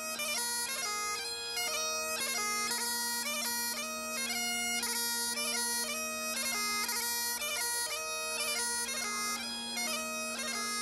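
Great Highland bagpipe playing a tune: a steady drone held throughout beneath a quick-moving chanter melody of many short notes.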